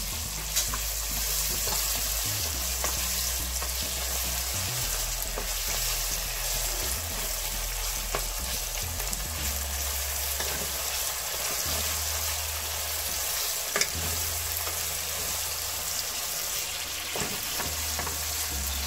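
Sliced onions sizzling in hot oil in a nonstick pot, being lightly fried while a wooden spatula stirs them. The spatula taps and scrapes against the pan now and then.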